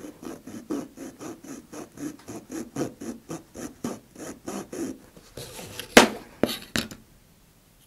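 Razor saw cutting through the cardboard casing of a spent 24 mm rocket motor with quick, even back-and-forth strokes, about three or four a second, for around five seconds. About six seconds in comes a sharp knock, the loudest sound, followed by two lighter taps.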